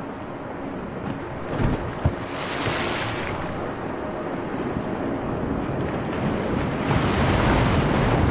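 Choppy sea waves washing and churning, with wind. The wash swells twice, about two and a half seconds in and again near seven seconds, and a couple of dull thuds come just before two seconds in.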